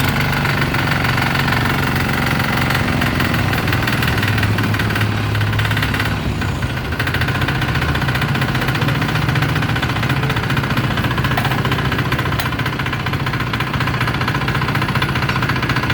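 Firman FTL 900 HD hand tractor's 5.2 hp single-cylinder diesel engine (type 173F) running steadily just after starting, with a fast, even diesel clatter.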